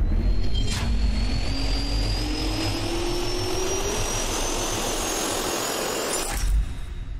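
Turbofan jet engine spooling up: a slowly rising whine over a deep rumble and rushing air, with a sharp hit about a second in. It cuts off suddenly about six and a half seconds in and fades away.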